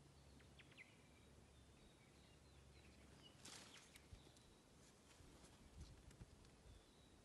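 Near silence outdoors, with faint bird chirps throughout. About three and a half seconds in comes a brief crunch, then scattered soft clicks and dull thumps: footsteps on crunchy lava rock.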